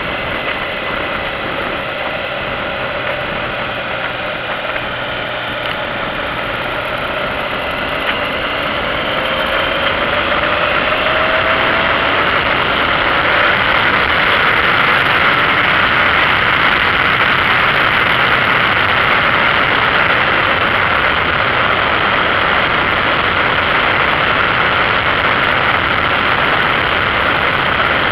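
Motorcycle engine running under heavy wind noise. About a third of the way in, the engine note rises and the wind gets louder as the bike speeds up to pass a car, then stays loud and steady.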